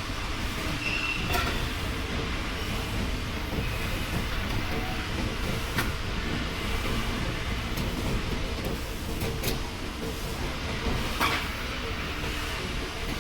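Factory-floor noise of electro-hydraulic hybrid press brakes at work bending sheet metal: a steady mechanical hum broken by four sharp clicks or clanks.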